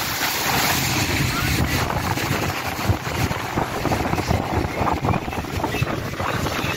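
Wind buffeting the microphone and water rushing past the hull of a motorboat under way, over a steady low engine drone.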